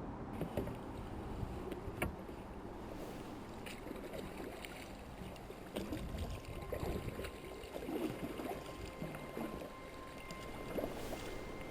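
Kayak paddle strokes: the blades dip and splash in the sea, with water sloshing against the hull and a few short splashes and knocks.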